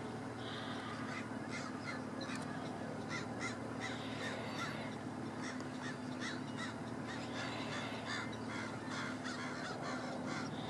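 A flock of birds calling nearby: many short, harsh calls, scattered and overlapping, several a second at times, over a faint low hum.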